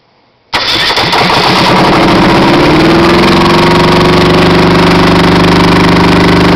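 Perkins two-cylinder diesel engine, built by Shibaura, starting: it fires about half a second in, picks up speed, and within about two seconds settles into a steady, even run.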